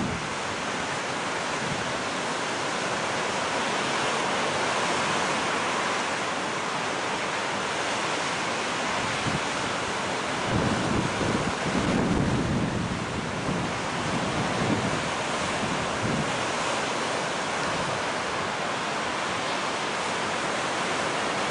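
Ocean surf: a steady wash of breaking waves, with a bigger wave surging in about halfway through.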